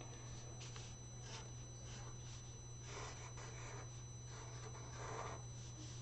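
Black felt-tip marker drawing on paper: a string of short, soft scratchy strokes, faint, spaced about every half second to a second.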